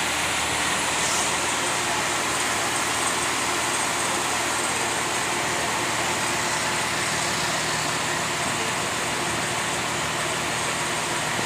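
A boat's engine running steadily, with a constant rush of water and wind noise over it.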